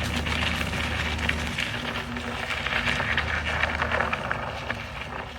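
A vehicle engine running low and steady, dropping out briefly and returning, while a fallen birch tree crackles and snaps as it is pulled with chains.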